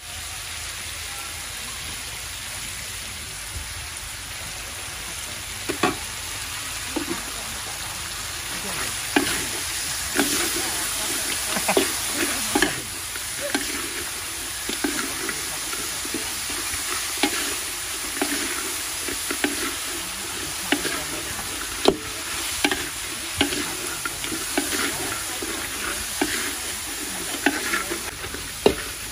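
Crab stir-frying in a steel wok: a steady sizzle, with a metal spatula scraping and knocking against the wok in irregular strokes from about six seconds in.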